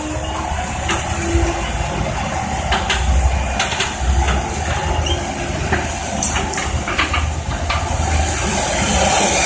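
Tracked excavator's diesel engine running steadily under hydraulic load, with a high hiss and scattered short knocks through it.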